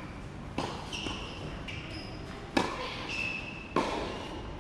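Tennis ball being struck by rackets in a rally: three sharp hits, one to two seconds apart.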